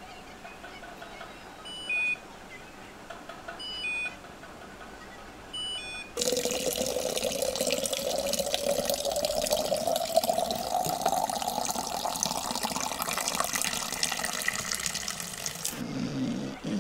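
Three short electronic beeps about two seconds apart, then from about six seconds water gushing into a container, its pitch rising steadily as the vessel fills, cutting off abruptly near the end.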